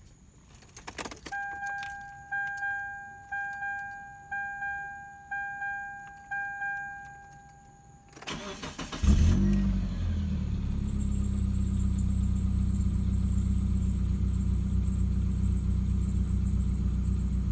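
A few key clicks, then a dashboard warning chime sounding about once a second for several seconds. About eight seconds in, the 2000 Mitsubishi Eclipse GTS's 2.4-litre four-cylinder cranks briefly, catches with a rise in level and settles into a steady idle; the car has an exhaust leak.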